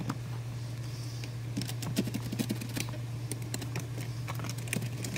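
Quick light clicks and taps of hands and fingers working at the plastic dashboard trim around the centre display, coming in clusters from about a second and a half in, over a steady low hum.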